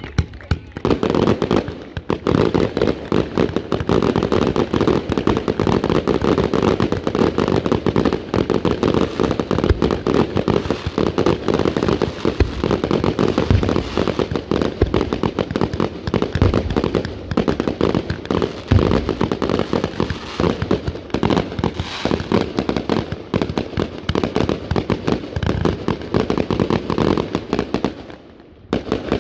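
Fireworks display: a dense, unbroken barrage of bangs and crackling, dropping away briefly near the end.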